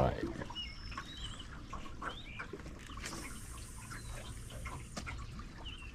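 Birds chirping in short wavy calls, with faint scattered clicks and a soft hiss for about two seconds in the middle.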